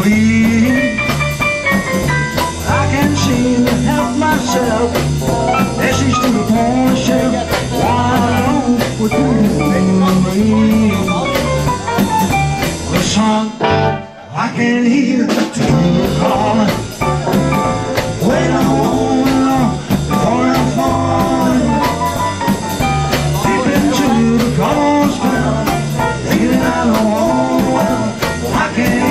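A live band playing a bluesy rock-and-roll number: a man singing over guitar, upright bass and drums. The band briefly drops out about halfway through, then comes back in.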